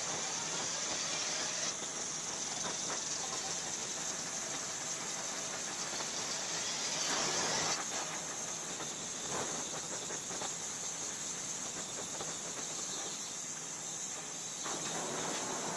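Oxy-fuel gas torch flame hissing steadily as it heats the steel of a hairpin radius rod, swelling louder for a moment about seven seconds in.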